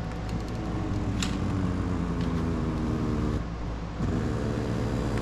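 C6 Corvette power seat motor running as the seat moves forward: a steady electric whine that stops about three and a half seconds in, then runs again for a second or two. A single click about a second in.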